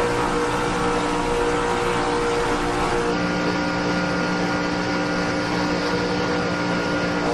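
Performance car engine running hard at a steady high pitch, with a step change in its tone about three seconds in.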